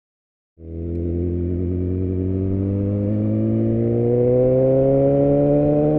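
Motorcycle engine pulling in gear, its pitch rising slowly and steadily as the bike gains speed. It cuts in abruptly after about half a second of silence.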